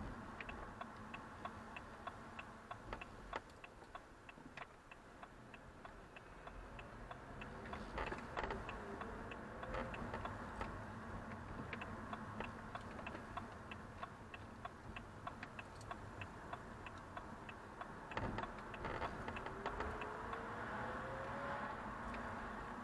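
A car's turn-signal indicator ticking steadily inside the cabin, about two ticks a second, over low engine and road noise. A faint rising whine comes in twice.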